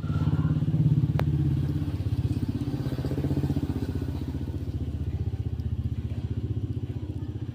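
An engine running at a steady idle: a low, even, rapid pulsing, a little louder in the first second or two, with one sharp click about a second in.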